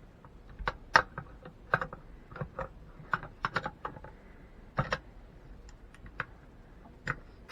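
Red dot sight being mounted on an AK-pattern rifle: a run of irregular sharp clicks and light knocks, the loudest about a second in and near the five-second mark.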